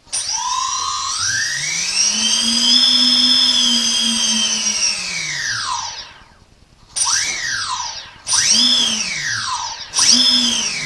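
Brushless motors on a multicopter frame, spun without propellers by the transmitter throttle after ESC calibration: a whine that climbs in pitch, holds, and winds back down over about six seconds, then three short rev-ups and run-downs.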